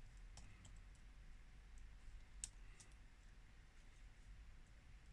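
Faint, scattered small clicks of repair tools on a smartphone's internal parts, over a low steady hum.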